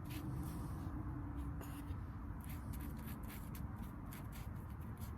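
Irregular brush strokes scratching as sealer is spread over the rough end grain of sawn Southern Yellow Pine boards.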